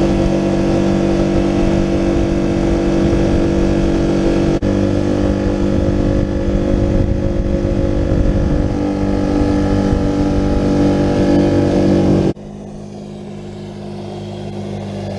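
A 6 hp four-stroke outboard motor running steadily at high throttle, pushing a small dinghy at speed. About twelve seconds in, the sound cuts abruptly to a quieter, lower engine note.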